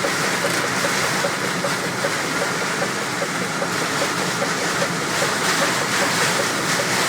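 Heavy storm rain and wind pounding on a truck, heard from inside the cab as a steady loud rush. A light, even tick repeats about twice a second underneath.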